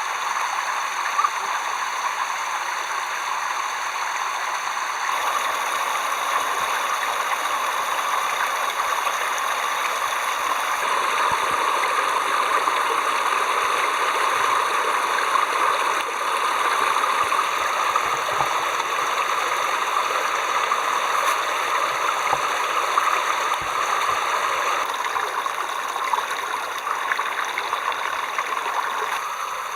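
Water running steadily in a continuous flow, with a few faint knocks.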